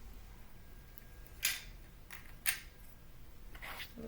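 Lego plastic pieces clicking as shotgun-shell parts are pulled out of a Lego toy gun: three sharp clicks about a second apart.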